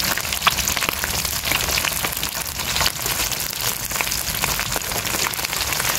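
Whole small snakeskin gourami deep-frying in hot oil in an aluminium wok, giving a steady, dense crackling sizzle.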